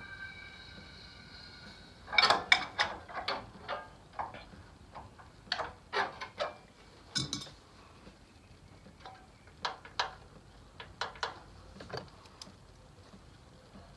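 Metal hand tools clicking and clinking during valve adjustment on a VW Beetle engine. A quick run of sharp metallic clicks comes about two seconds in, then scattered single clicks.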